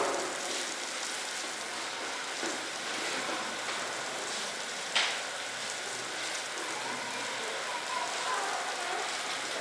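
Steady outdoor background hiss, with one sharp click about five seconds in and faint distant voices near the end.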